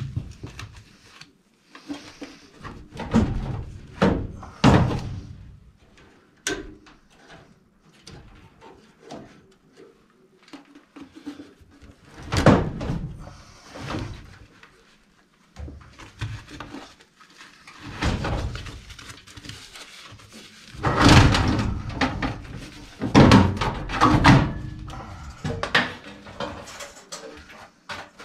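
Sheet-metal clunks, knocks and scraping as a gas furnace's heat exchanger is worked loose and slid out of its steel cabinet along its rails. The noise comes in irregular bunches, loudest in the second half.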